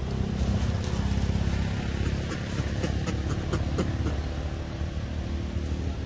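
A steady low engine rumble with a rapid pulse, like a small motor idling, with scattered light clicks and rustles of dry leaves.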